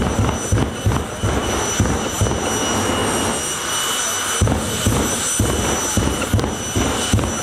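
Jet engine of the FireForce 3 jet funny car running on the start line: a steady turbine whine over a low throbbing that pulses about three to four times a second, pausing briefly about halfway through before picking up again.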